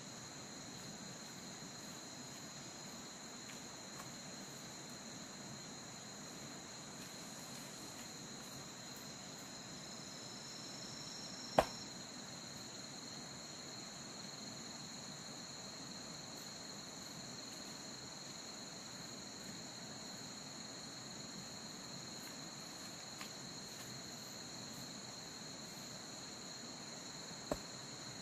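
Steady high-pitched drone of forest insects, holding two unchanging pitches. A single sharp knock cuts through about halfway in, and a fainter one comes near the end.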